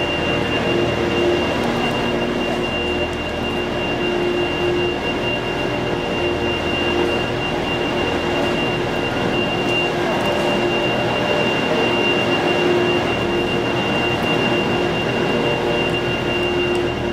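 Heavy machinery running steadily, with a constant high-pitched whine over a dense mechanical noise.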